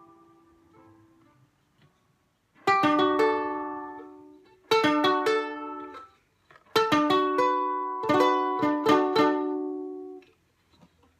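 A ukulele strummed chord by chord and left to ring, slow lesson pace. The tail of an E minor chord fades out, then after about two seconds of quiet come a single strum and two groups of quicker strums, including a D chord, dying away near the end.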